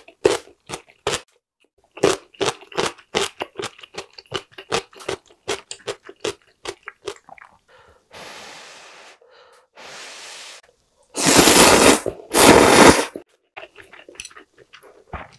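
Close-miked crunchy chewing of spicy cucumber salad, a rapid run of crisp crunches for about the first seven seconds. Then come two soft hissing sounds and two loud slurps of ramyeon noodles, about eleven and twelve and a half seconds in.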